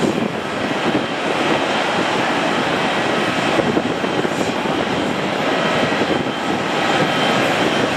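Boeing 777-300ER's twin GE90-115B turbofans running at taxi power: a steady jet rumble with a faint, even whine on top.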